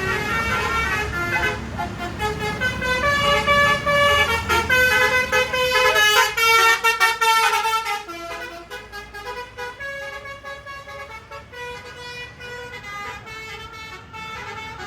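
Bus telolet horn, a multi-tone musical horn, playing a quick run of changing notes, loud for about eight seconds and then fainter to the end.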